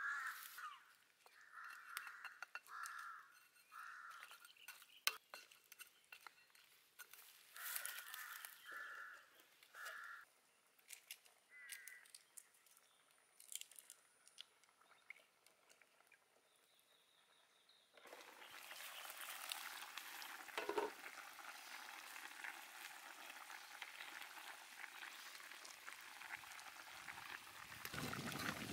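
Crows cawing repeatedly over the first ten seconds or so. From about two-thirds of the way through comes a steady sizzling and bubbling: the braised beef ribs simmering in a wok over a wood fire.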